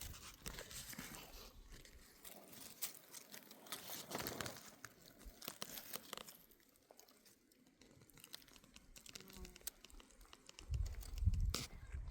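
Irregular rustling, crinkling and crunching, with a few heavier low thumps near the end.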